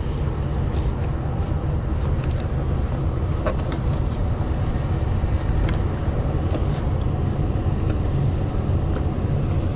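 A fillet knife cutting along a redfish's bones, heard as light scrapes and short clicks over a steady low rumble.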